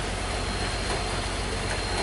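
Heavy truck engine running with a steady low rumble on a steep climb, under a constant wash of road and traffic noise.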